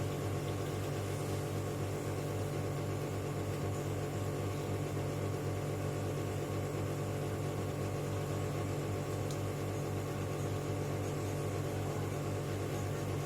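Steady low electrical hum with a faint hiss, even and unchanging throughout.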